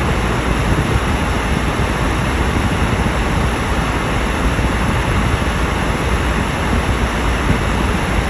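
Steady road noise inside a moving car at highway speed: tyres on the road and wind against the body, over a deep, even rumble.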